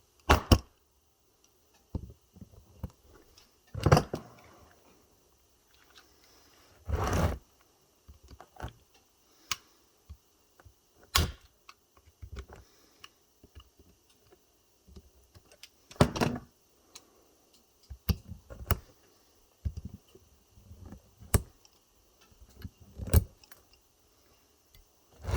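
Pliers working at an e-bike battery pack, tugging and snipping at pieces on the cells: irregular metallic clicks, snaps and knocks, with a few brief scraping rasps.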